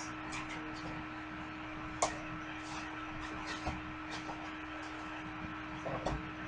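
Scattered clicks and light rustling of cardboard and plastic packaging as a toy R/C car's transmitter is taken out of its box insert, the sharpest click about two seconds in, over a steady low hum.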